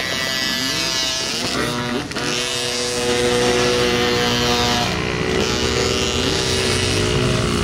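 Dirt bike engines running on a motocross track, their pitch rising and falling as the throttle is worked.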